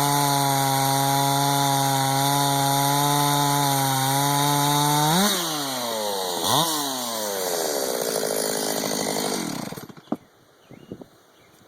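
Stihl MS361 two-stroke chainsaw running at full throttle under load in a cut, its pitch rising as the cut finishes, then dropping off as the throttle is released. One short rev follows, it runs on at a lower pitch, and it is shut off about ten seconds in, leaving a few faint knocks.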